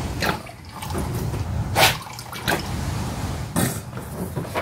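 Gear oil being squeezed from a plastic squeeze bottle through its nozzle into a manual transmission's fill hole: a low gurgling rumble of oil going in, broken by about five short sharp splutters as the bottle is squeezed.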